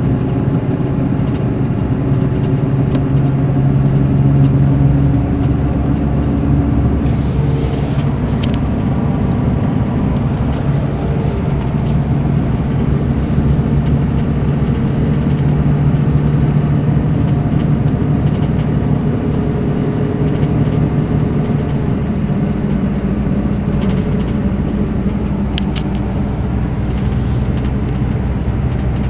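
Mercedes-Benz O500 RSD BlueTec5 coach's diesel engine running steadily, its pitch drifting slightly up and down, with a few faint ticks.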